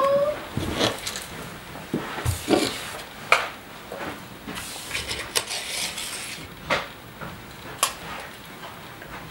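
Handling noise from a plush toy lion being moved about and set down: scattered light clicks and taps with soft rustling between them.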